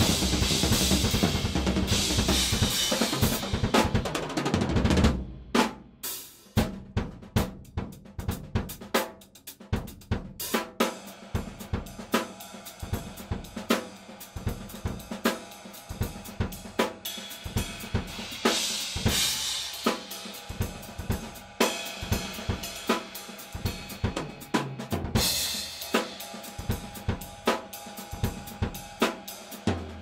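Drum kit played with Saluda Earthworks series cymbals, several of them drilled with holes: a dense wash of cymbal crashes for the first five seconds, then a groove of separate drum and cymbal hits with short gaps, and loud cymbal crashes again a little past the middle and about five seconds before the end.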